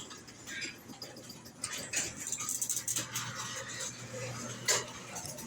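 Old garage door running on its electric opener: a steady motor hum with intermittent clicks, rattles and short squeaks from the moving door.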